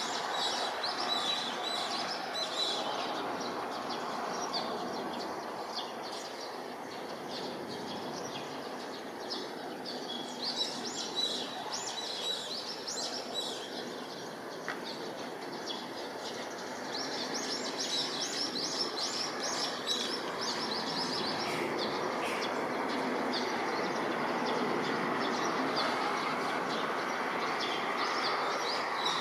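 Distant jet noise from a Boeing KC-767 tanker on approach: a steady rushing hum that grows louder over the last ten seconds or so. Small birds chirp repeatedly over it, busiest a little past the middle.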